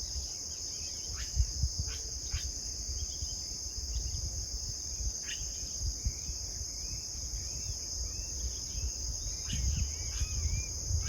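Steady high-pitched chorus of insects in open pasture, with short arched bird chirps repeating over it, growing busier towards the end, and a few sharp clicks. A low rumble runs underneath.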